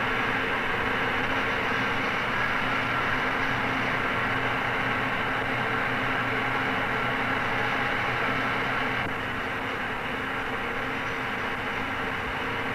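A steady droning hum with hiss underneath, without speech or music. It drops slightly in level about nine seconds in.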